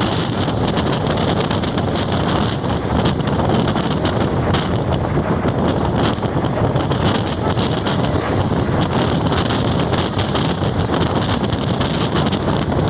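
Wind buffeting the microphone over the steady running noise of a moving train.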